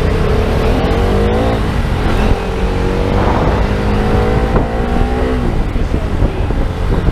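Motorcycle engine accelerating under the rider. The revs climb, drop at a gear change about one and a half seconds in, climb again more slowly and fall away about five and a half seconds in, over a steady low rush of wind and road noise.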